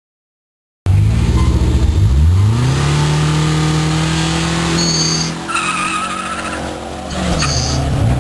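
Silence for about the first second, then a rally car's engine running loud: the revs climb about two seconds in and hold steady. High tyre squeals come about five seconds in and again near the end.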